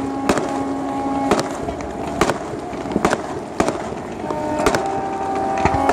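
Fireworks going off in an irregular string of sharp bangs, roughly one a second, over a steady crackling hiss, with held tones sounding underneath that change pitch about four seconds in.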